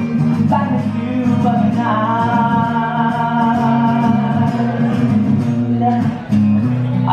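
A man singing a song live over guitar accompaniment, holding one long note through the middle.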